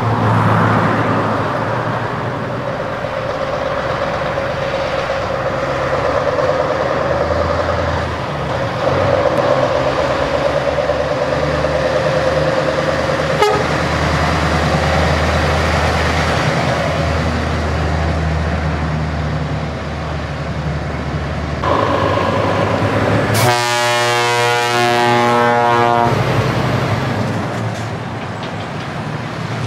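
Heavy truck diesel engines running with a deep, steady rumble. About three-quarters of the way through, an air horn gives one loud blast of about two and a half seconds.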